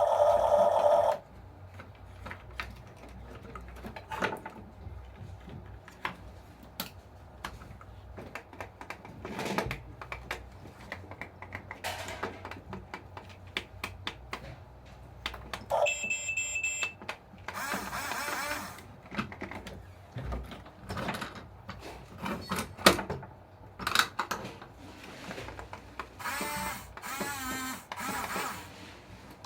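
Small parts and tools being handled on a workbench during an RC toy bulldozer repair: scattered clicks and taps, with a loud buzzing tone at the start and a few short buzzing or whirring bursts later.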